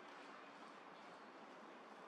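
Near silence: a faint, steady background hush with no distinct event.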